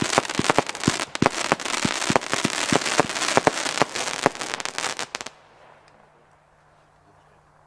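Lesli 'Gatekeeper' 64-shot 20 mm fireworks battery firing: a rapid string of shots and bursts over dense crackling. It cuts off suddenly about five seconds in, leaving only a faint low hum.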